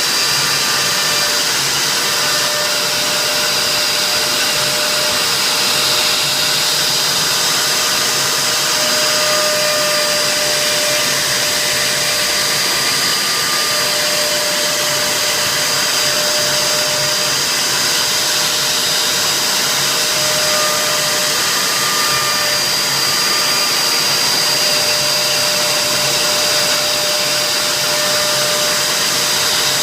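CNC router spindle running steadily while engraving, a constant high whine over a steady rushing noise.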